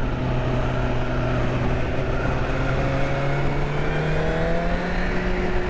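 Sport motorcycle engine running under way, its pitch climbing slowly as the bike accelerates and then levelling off near the end, over a steady rush of wind and road noise.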